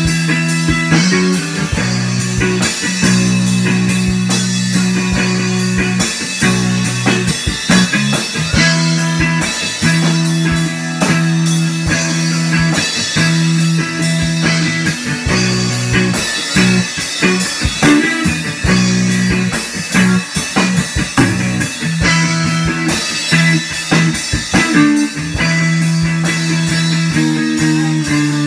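A guitar and a drum kit playing a loud rock jam together: low guitar notes held for a few seconds at a time under a busy run of drum and cymbal hits.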